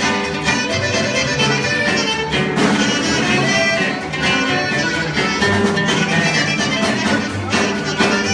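Sonoran regional music played live by a string band, a violin leading over strummed guitar at a steady beat.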